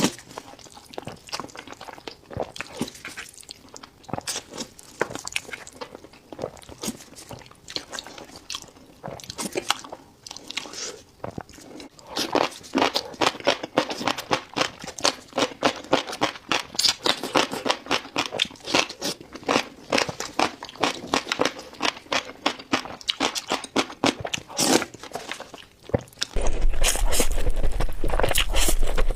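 Close-miked eating of shellfish: chewing with repeated crunches and wet clicks. About twelve seconds in, the bites come quicker and louder. Near the end the whole sound jumps louder, with a low hum underneath.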